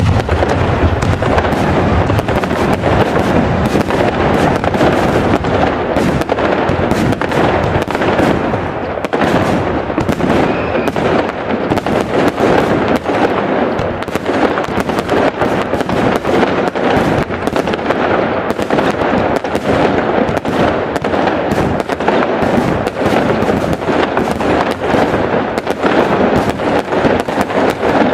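Fireworks going off in a loud, dense, unbroken barrage: many rapid bangs and crackles overlapping with no pause.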